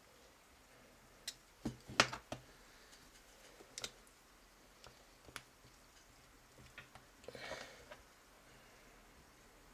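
Sharp clicks and taps of a small microwave turntable gear motor's casing and parts being handled and taken apart by hand. The loudest cluster of clicks comes about two seconds in, with a brief scraping rustle near the end.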